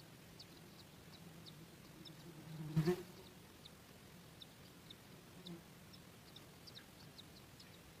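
Faint, very short high chirps repeating irregularly throughout, with a single low thump just under three seconds in, the loudest sound.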